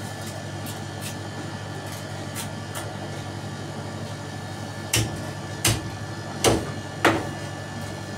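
A large fish-cutting knife chopping through a freshwater carp onto a cutting board. Four heavy chops come roughly a second apart in the second half, after a few light knife taps, over a steady machine hum.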